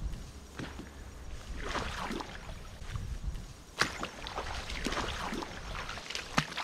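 Footsteps through wet marsh grass: stalks rustling and swishing, with soggy ground squelching underfoot, about a step a second over a low rumble. Two sharp clicks stand out, about four seconds in and near the end.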